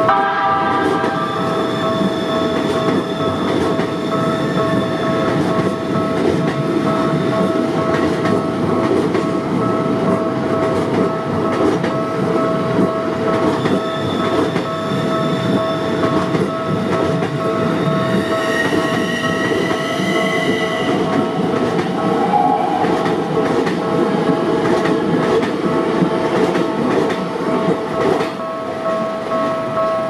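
A Keikyu New 1000 series electric train of three coupled sets rumbles over the level crossing, its wheels clacking over the rail joints. A high whine rises in pitch about two-thirds of the way through. The crossing's alarm rings steadily over it.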